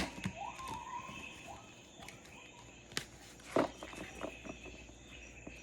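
Recorded jungle ambience: a steady high chirring of insects, with a bird's rising whistle near the start and a couple of sharp taps about three and three and a half seconds in.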